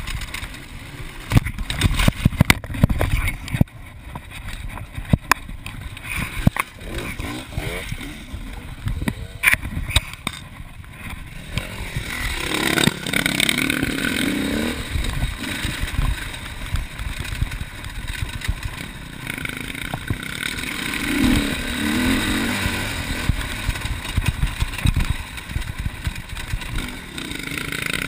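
Enduro dirt bike engine running and revving up and down on a rough forest trail, recorded from the handlebars. In the first half many sharp knocks and rattles from the bike over the bumps ride over the engine; in the second half the rise and fall of the engine's pitch stands out.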